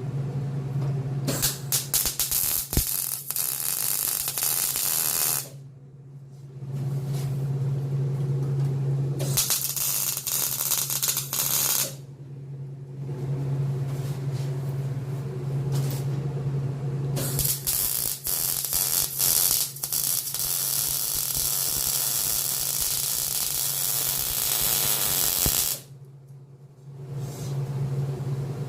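Electric arc welding: the arc crackling steadily in four long runs with a short pause between each, over a low buzz from the welder, as a steel cross member is welded in.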